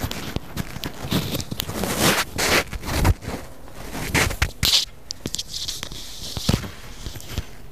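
Rustling and scattered knocks and clicks, irregular, from a person moving and handling things close to the microphone.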